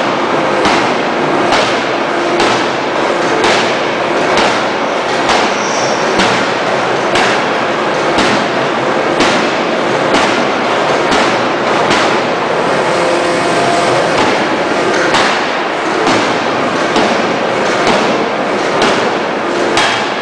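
Fully hydraulic open-die forging hammer striking a red-hot billet in a steady rhythm of about one blow a second, with continuous loud noise between the blows.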